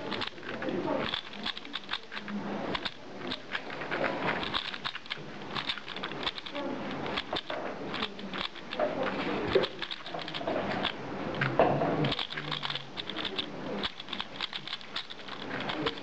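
Plastic 3x3x3 speedcube being turned rapidly by hand, a continuous run of quick clicks and clacks from the layers snapping round.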